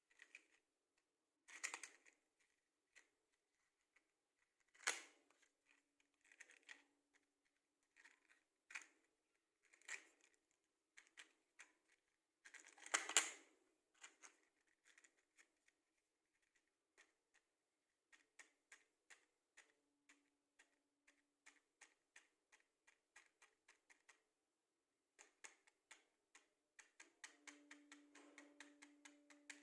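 Wooden matchsticks handled close up: light clicks and taps, with a few louder rattles about 2, 5 and 13 seconds in, then a run of quick small clicks that grows denser near the end.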